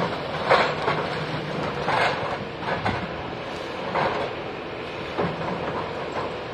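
Demolition excavator's diesel engine running under load while its demolition attachment crunches and clanks through concrete rubble and debris, with irregular loud knocks every second or two.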